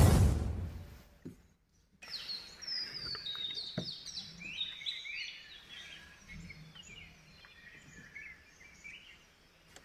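An intro sound effect fades out in the first second; after a brief gap, several wild birds call and chirp, many in quick falling whistles.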